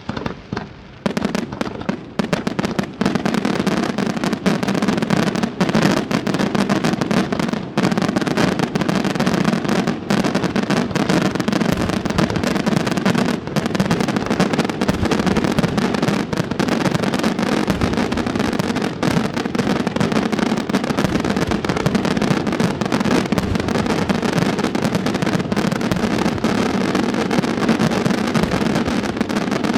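Aerial fireworks display in a dense, rapid barrage, with shell bursts and crackling reports piling on top of one another without pause from about a second in.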